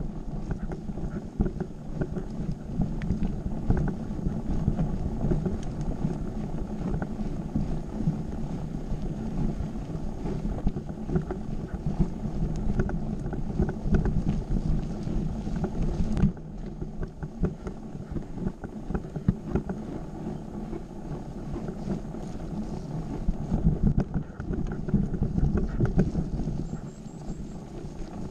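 Mountain bike rolling over a rough dirt trail: a steady rumble of tyres on dirt with frequent small rattles and knocks from the bike, and some wind on the microphone. The hiss on top thins out suddenly about halfway through.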